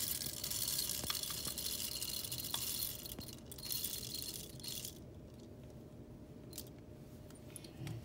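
Whole coffee beans rattling into the hopper of a Comandante hand coffee grinder, a dry hissing rattle that stops about five seconds in, followed by a few light clicks.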